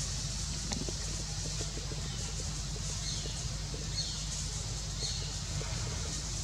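Outdoor ambience with a steady low rumble and high hiss, and light rustling of dry leaves as a puppy and macaques scuffle. A bird gives three short falling whistled calls, about a second apart, in the middle.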